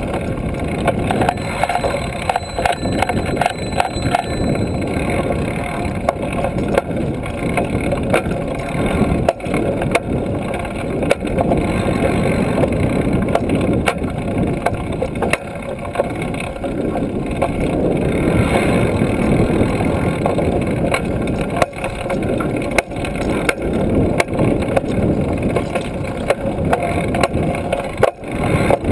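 Wind rushing over a handlebar-mounted camera on a moving trail-a-bike, a steady dense noise, mixed with riding noise from the bike: frequent small clicks and knocks.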